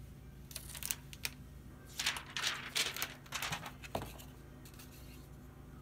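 Plastic protection film being peeled off a new laptop LCD screen and crinkled. It comes in short rustling, crackling bursts, briefly about half a second in and then in a longer stretch from about two to three and a half seconds, with a small tick near four seconds.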